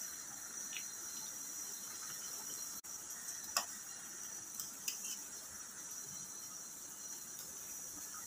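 Besan-batter-coated pav deep-frying in hot oil in a kadhai: a steady high sizzle, with a few light clicks of a steel ladle against the pan.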